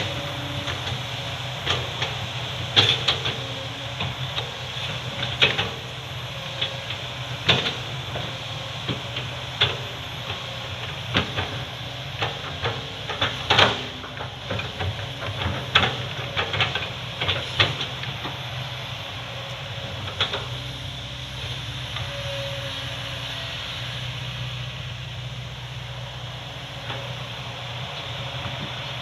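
Excavator's diesel engine running steadily, with many irregular knocks and clatters over the first two-thirds that thin out to just the engine near the end.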